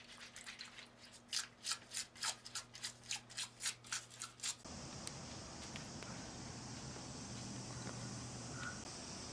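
Quick scrubbing strokes of a brush, about three to four a second, as a part is cleaned. About four and a half seconds in they stop abruptly, giving way to a steady high hiss.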